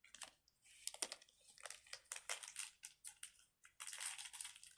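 Faint rustling and light clicking of small plastic fidget toys being handled, with a denser stretch of crinkling near the end.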